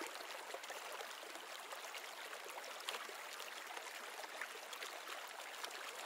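Faint steady hiss-like background noise, with a few soft ticks.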